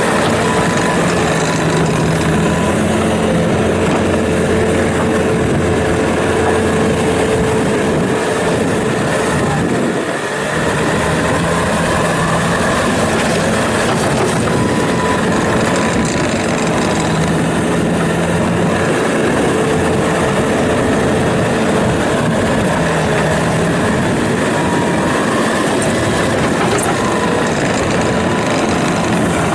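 Bobcat T650 tracked skid steer loader's diesel engine running steadily, with humming tones that change every few seconds and a brief drop in level about ten seconds in.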